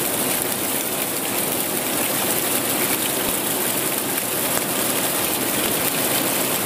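Steady rushing water from water running down a wet rock face and the river flowing past the bank.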